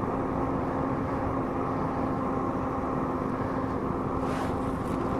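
Steady engine and road noise inside a moving vehicle's cabin, with a constant low hum.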